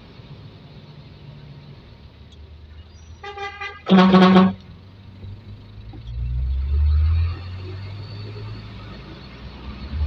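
Truck horn sounding two short toots about four seconds in, a fainter one followed by a loud half-second blast, over the steady low rumble of a truck's diesel engine heard from inside the cab. The engine rises about six seconds in and eases off a second later as the truck pulls away.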